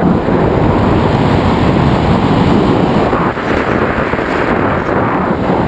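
Steady, loud rush of airflow buffeting the microphone of a camera mounted on a hang glider's frame in flight.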